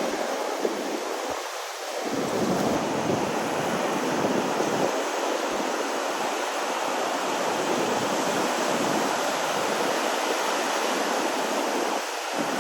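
Steady rush of ocean surf mixed with wind on the microphone, easing briefly about two seconds in.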